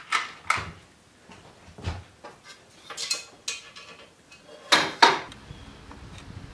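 Loose metal hardware and tools clinking and clattering in a series of sharp knocks as they are rummaged through. The loudest clatter comes about five seconds in.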